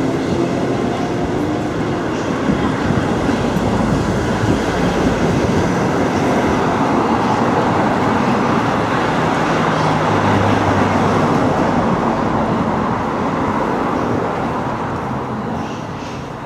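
Loud, steady noise of a moving vehicle, easing off near the end.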